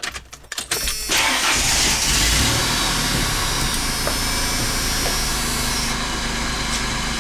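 Clicks, then an engine starts about a second in and runs, settling near the end into a steadier idle with a low hum.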